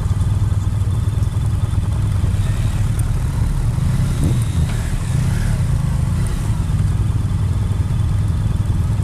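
Honda adventure motorcycle engines running steadily at a crawl. A passing scooter's engine briefly rises and falls in pitch about four seconds in.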